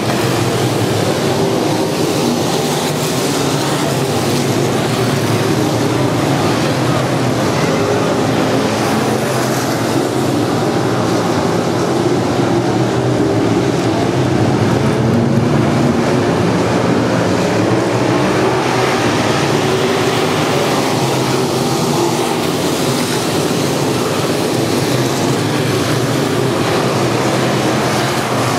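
A field of street stock race cars running hard around a dirt oval: many engines at once blending into one loud, steady drone.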